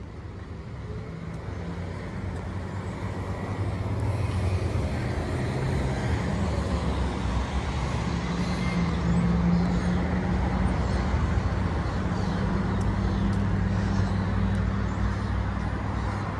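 Road traffic on a busy street: vehicle engines running steadily with a low hum, growing louder over the first few seconds and then holding.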